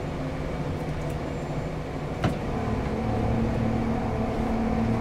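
Boat's outboard motor running steadily, with one sharp click a little over two seconds in and a slight shift in its note just after. It is running without missing, a misfire that cleared once the boat was taken out again.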